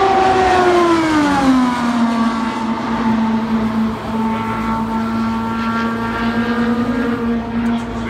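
IndyCar's 2.2-litre twin-turbo Honda V6 at full throttle on a qualifying run, passing at speed. Its pitch drops sharply about a second in as the car goes by, then holds steady as it runs on down the track, fading slightly near the end.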